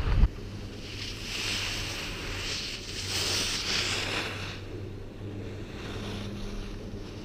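Skis hissing and scraping over packed snow during a downhill run, swelling and fading several times, over a steady low wind rumble on the camera microphone.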